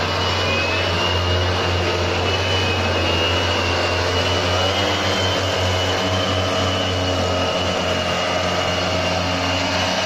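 Backpack motorized mist blower sprayers running steadily while spraying disinfectant: small two-stroke engines droning with a steady high whine from the blower.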